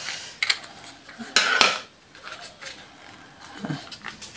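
Small clicks and scrapes of hands working a false-eyelash case and its packaging, with a louder scratchy rustle about one and a half seconds in.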